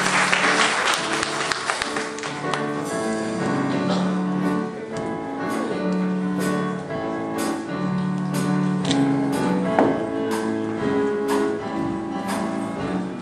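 Church keyboard music playing sustained chords with a steady percussion beat, while applause dies away over the first two seconds.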